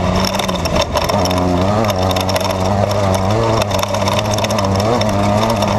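Off-road desert race car's engine running hard, heard from inside the car. Its pitch shifts slightly up and down with the throttle, under frequent rattles and knocks from the car.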